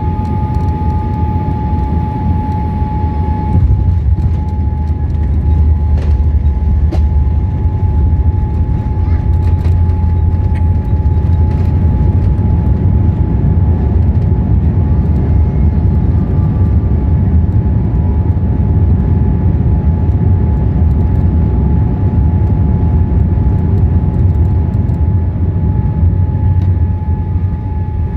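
Steady low rumble of a Boeing 787-8 Dreamliner heard inside the cabin, with a thin steady whine that fades a few seconds in as the rumble grows slightly louder.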